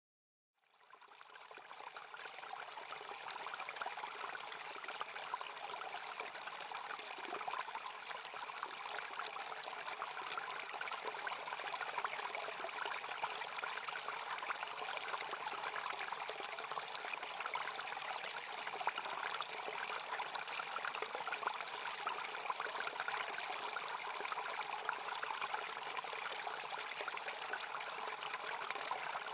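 Small stream running steadily, fading in from silence over the first second or two.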